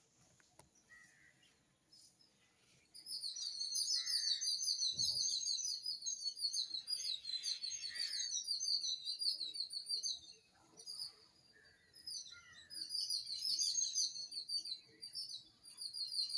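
Small birds chirping in a rapid, dense twittering that starts about three seconds in and goes on with a couple of short breaks.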